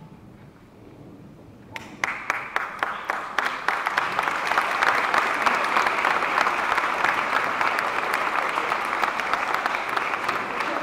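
Audience applauding: quiet at first, then a few scattered claps about two seconds in that quickly build into steady, dense applause.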